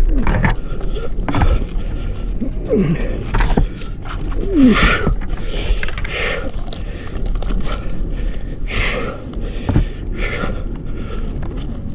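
A stranded cat in a tree meowing several times, each cry short and falling in pitch, over the scraping and rustling of a climber's gear and body against bark and branches.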